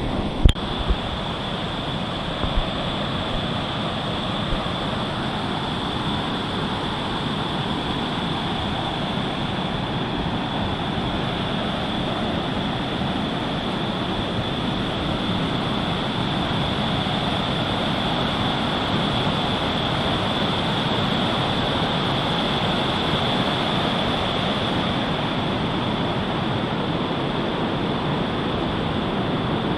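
Water pouring over a small creek waterfall: a steady rushing noise, with a steady high-pitched whine over it and a few knocks in the first seconds.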